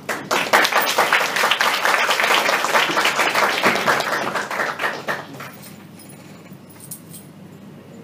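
A small audience clapping for about five seconds, dying away a little after five seconds in.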